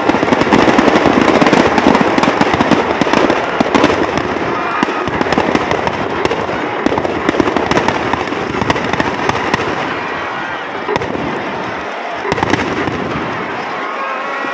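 Firecrackers packed into a burning Ravana effigy going off in a dense, rapid string of sharp cracks, thinning out after about ten seconds.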